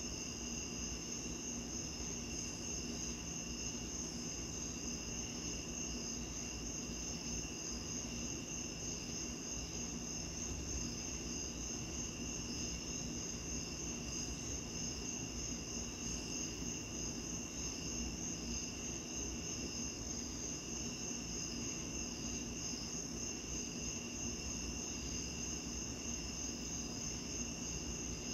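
Crickets chirping steadily in a dense night chorus, several high-pitched trills overlapping without a break, over a low steady rush of background noise.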